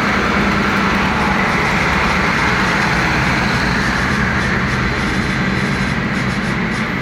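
Steady road and wind noise of a vehicle travelling at highway speed, with a low engine hum underneath.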